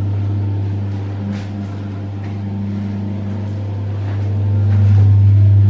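A steady low hum that grows louder about four and a half seconds in.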